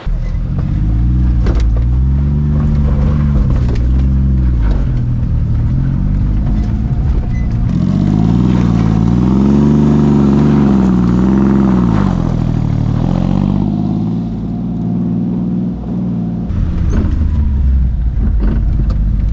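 Honda Acty mini truck's small three-cylinder engine pulling the truck along a dirt track, its revs rising and falling several times as it climbs. About three-quarters of the way through the sound changes to a steadier, lower engine note heard from inside the cab.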